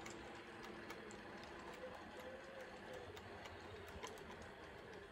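Model railway freight wagons rolling along the track, faint, with a steady running hum and scattered light clicks from the wheels over the rail joints.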